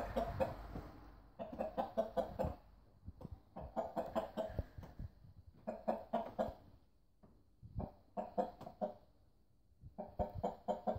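Rooster clucking in short runs of rapid clucks, about six runs spaced roughly two seconds apart.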